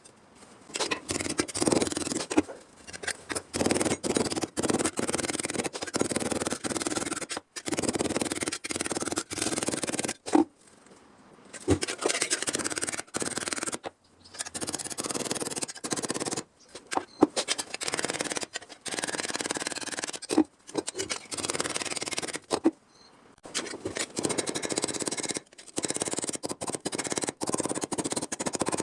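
Scraping and cutting noises from sheet-metal bodywork, in short bursts broken by abrupt breaks and sharp clicks.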